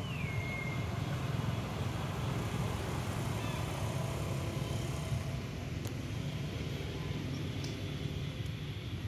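Steady low outdoor rumble like distant traffic, with a short high-pitched call that falls in pitch and then holds briefly, right at the start.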